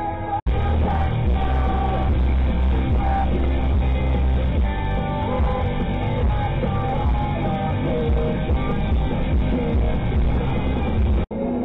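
Music with singing, cut off by two brief dropouts: one about half a second in and one near the end.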